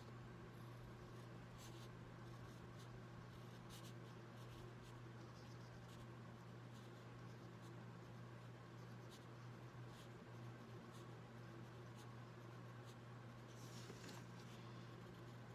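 Faint scratching of a fine-tipped pen drawing ink lines on watercolor paper, in short irregular strokes, over a steady low hum.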